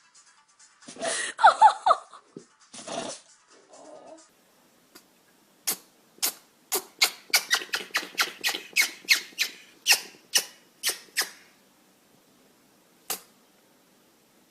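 A short high squeak about a second in. From about five seconds in comes a rapid string of short, sharp animal sneezes, roughly three a second for several seconds, and one last sneeze near the end.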